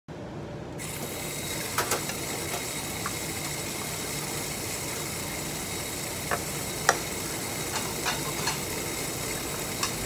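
Water running steadily from a tap into a stainless steel sink, starting just under a second in, with several sharp clinks of dishes and bowls being rinsed and set in a dish rack.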